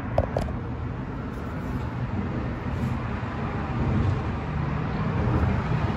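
Steady low rumble of background noise, with two light clicks just after the start.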